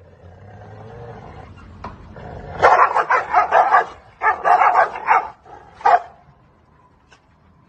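Two dogs snarling at each other: a low growl builds, then two loud bouts of snarling barks about a second each, and one last short snarl.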